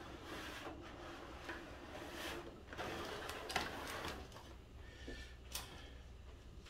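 Faint kitchen handling sounds: a foil pan and a glass dish being moved about at a stainless steel sink, giving a few soft knocks and rustles over a low steady hum.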